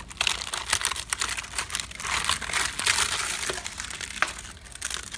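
Termites at work inside infested wood: a dense, steady crackling of many tiny clicks and rustles, the sign of an active termite infestation.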